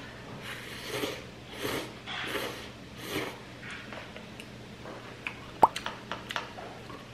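Noodles from a paper cup of instant ramen slurped in four quick pulls, then several sharp clicks and taps of chopsticks against the cup and its foil lid.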